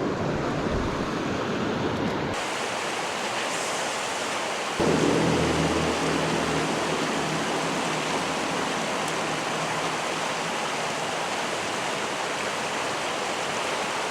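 Steady rush of a small creek running over rocks. The sound changes abruptly about two and a half seconds in and grows a little louder about five seconds in.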